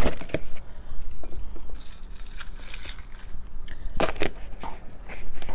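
A person chewing a mouthful of milk-soaked breakfast cereal close to the microphone: irregular crunches and wet mouth sounds, with a louder cluster of crunches about four seconds in.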